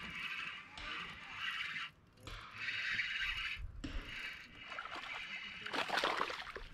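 Water splashing as a hooked bass thrashes at the surface beside a kayak, loudest in a short flurry about six seconds in, over a steady hiss.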